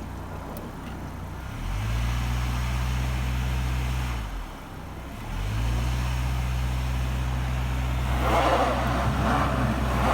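A car engine held at raised revs, easing off, then raised again and held, as the car tries to reverse out of packed snow that has it stuck. A rushing hiss grows over it near the end.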